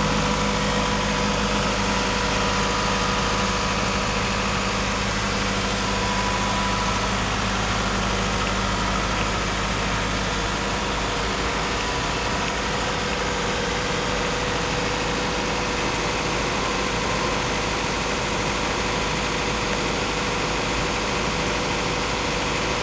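2011 Isuzu NPR's 3.0L four-cylinder diesel engine idling steadily.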